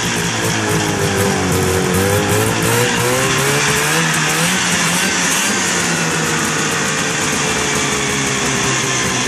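Two-stroke 340 cc engine of a 1975 Arctic Cat Cheetah snowmobile with a Walbro WF-8 carburetor, running with the throttle worked lightly. The engine speed rises and falls a little in the first few seconds, then holds steadier at a lower speed. The owner says it still struggles after a full carburetor rebuild.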